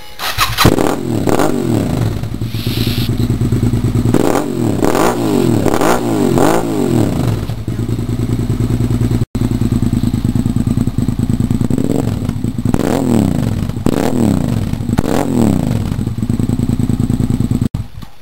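Suzuki SV650S 90-degree V-twin with carburettors, running through a Yoshimura R&D aftermarket slip-on exhaust. It idles between short throttle blips: a run of quick revs in the first half and another run of revs in the second half.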